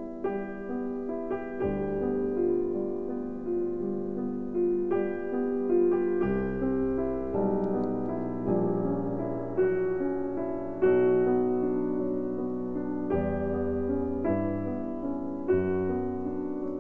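Background piano music: slow, sustained notes and chords with a new one struck about every second or two over low bass notes.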